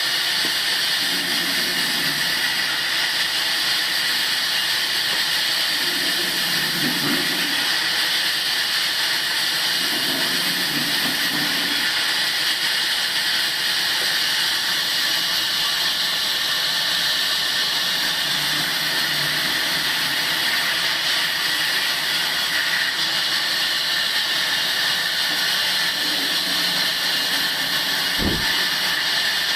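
Table sawmill running with a steady hissing rush. A lower sound comes and goes every few seconds, and a brief falling tone sounds near the end.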